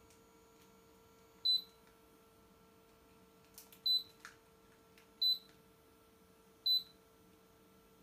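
Cool mist humidifier's control panel beeping four times, one short high beep per button press, as its humidity setting is stepped up on the display. A steady faint hum runs underneath.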